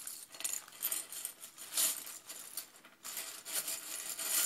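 Clear plastic zip-lock bag crinkling and rustling as it is unsealed and tipped up, with the loose plastic cube pieces inside shifting against it.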